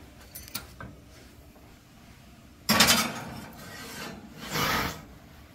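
Glass baking dish scraping on the metal oven rack as it is pushed into the oven: a sudden loud scrape about halfway through, and a second, shorter one near the end.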